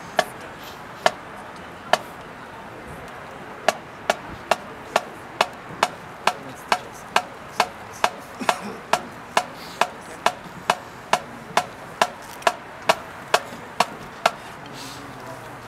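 Sharp wooden clicks keeping a steady marching tempo, typical of drumsticks clicked together to move a marching band into its opening set: a few clicks about a second apart, then a steady beat of about two clicks a second that stops shortly before the end.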